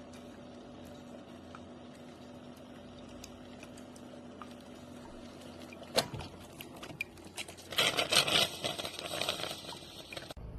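Single-serve coffee maker brewing, its pump giving a steady low hum. About six seconds in there is a sharp click, then a couple of seconds of hissing and sputtering.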